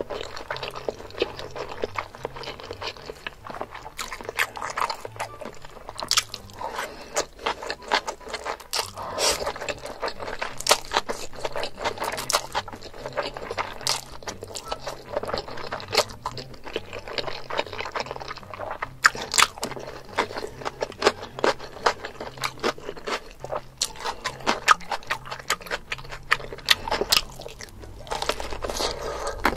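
Close-miked mukbang eating: crunchy bites and chewing, a dense run of irregular crackling crunches.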